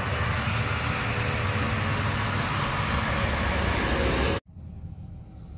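Steady rushing noise with a low rumble, no distinct events in it, which cuts off suddenly about four and a half seconds in and gives way to a much quieter room tone.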